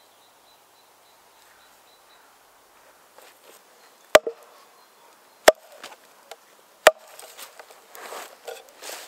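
A heavy oak maul striking the back of an axe set into the end of a green ash log to drive it in and cleave the log. There are three sharp wooden knocks about a second and a half apart, starting about four seconds in, followed by faint crackling.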